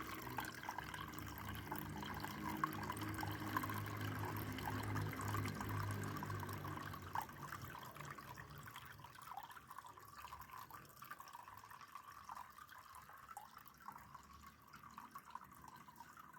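Water trickling and dripping steadily in a small decorative waterfall, with a low steady hum under it during the first half that fades out.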